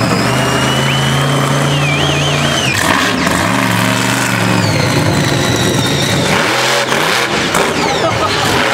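Monster truck engine revving as the truck drives, the pitch holding, dropping and climbing again several times, with a thin high whine above the engine note.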